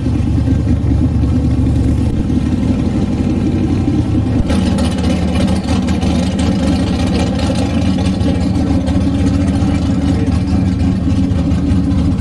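Engines of drag-race cars running at low speed as they drive slowly past towing small trailers, a steady low rumble. About four and a half seconds in it gets brighter and louder as a second car comes close.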